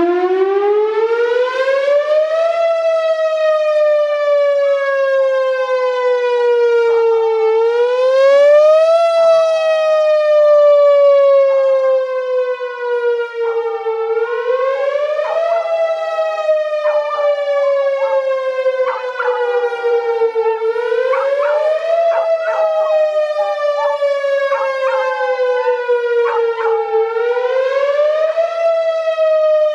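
Whelen Vortex R4 outdoor warning siren sounding a loud wail. It starts up at the opening and climbs in pitch over the first two seconds or so, then goes through a repeating cycle of a slow fall and a quick rise, about every six and a half seconds.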